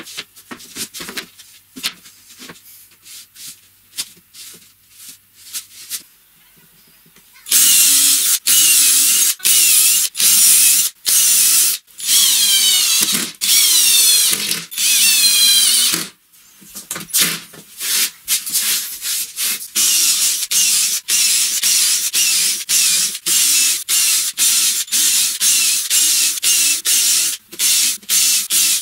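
Light knocks and clatter of a panel being handled for the first several seconds, then a cordless drill/driver running in many short bursts of about a second each with brief pauses between, its whine rising and falling in pitch as it drives screws through a plywood sheet into a wooden frame.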